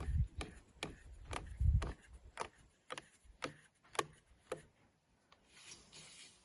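A regular series of sharp clicks, about two a second, with low thumps near the start; the clicking stops about four and a half seconds in.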